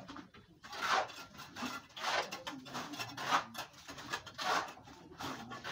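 Water splashing and sloshing in short, repeated strokes about once a second, as a container is scooped through shallow water on the concrete floor of a tank pit, with some scraping against the floor.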